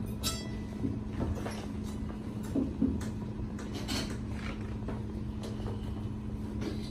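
Room background between pieces: a steady low hum with scattered light knocks and rustles as the harpists shift and settle at their harps and stands.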